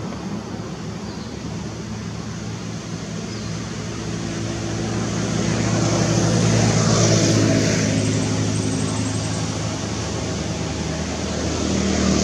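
A motor vehicle's engine running with a steady hum. It grows louder to a peak about seven seconds in, fades somewhat, then rises again near the end, as traffic passes.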